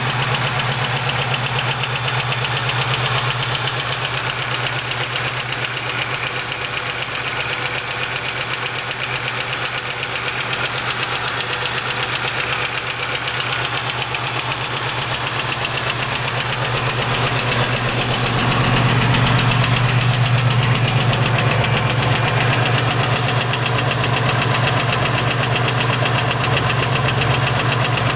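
GM 3800 V6 engine running with a fast, steady, rhythmic knock, the knock the engine is being shown for. It gets a little louder about two-thirds of the way through.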